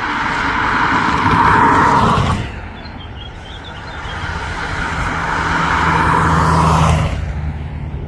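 Two vehicles pass close by one after the other. Each one's tyre and road noise builds over a couple of seconds and then drops away sharply, the first about two seconds in and the second near the end. A low engine hum runs under the second pass.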